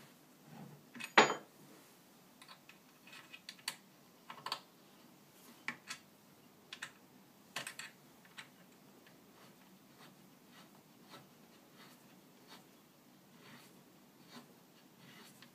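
Scattered clicks and knocks from handling the wooden parts, bolt and Allen key while fitting an Adirondack chair's arm, with one sharp knock about a second in. After about eight seconds only faint ticks remain.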